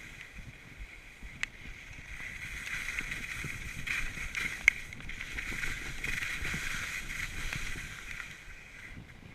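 Skis sliding and scraping on a hard piste during a downhill run, a steady swishing hiss that swells and eases with the turns, with a few sharp clicks, the loudest near the middle.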